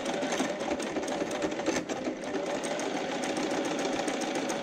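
Domestic electric sewing machine running steadily at high speed, its needle stitching rapidly through filter fabric.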